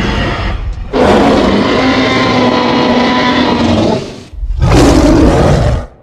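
Custom sound-designed monster roars for the fictional hybrid dinosaur Ultimasaurus. The end of one roar is followed by a long roar of about three seconds and a shorter one that cuts off suddenly.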